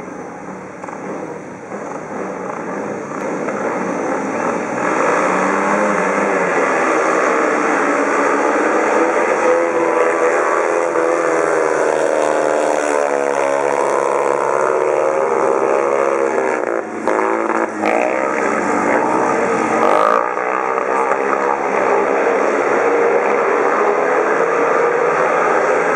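Speedway motorcycles' single-cylinder 500cc methanol engines racing around a shale oval, building up over the first few seconds, then rising and falling in pitch as the riders go through the bends. Two short sharp clicks come about two-thirds of the way through.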